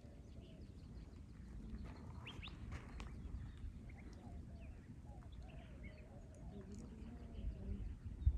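Faint outdoor ambience: scattered short bird chirps over a low, steady rumble.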